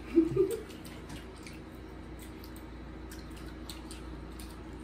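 Faint wet clicks and smacks of sour gumballs being chewed, with a short voiced sound from a person right at the start. A steady low hum runs underneath.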